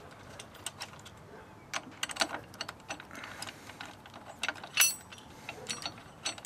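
Small metal clicks and clinks of bolts, washers and a socket on an extension being handled and turned as frame-slider bolts are started by hand. There is one louder ringing metal clink a little before five seconds in.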